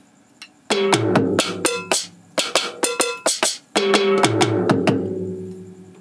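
Drum and percussion samples played on a Roland SPD-SX sampling pad: a quick pattern of struck hits with ringing, pitched tones, starting about a second in, ending with a hit around four seconds in that rings out and fades.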